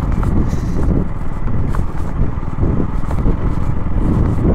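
Motorcycle running as it rides onto a rough, unpaved dirt track, a steady low rumble with a few short knocks from the uneven ground.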